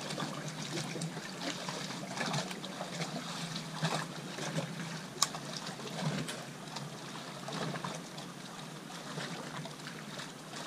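Small waves lapping and trickling against a bass boat's hull, with faint scattered clicks and a faint low hum that fades out about halfway.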